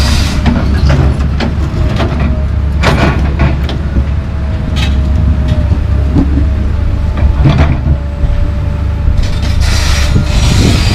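Komatsu PC220 LC track excavator's diesel engine running steadily, with scattered clanks and knocks from the bucket and boom as it swings. A faint thin whine comes in through the middle.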